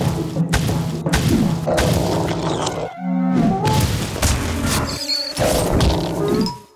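Cartoon soundtrack music punctuated by a rapid series of comic thumps and crashes, with a short sliding pitch about midway. It cuts off just before the end.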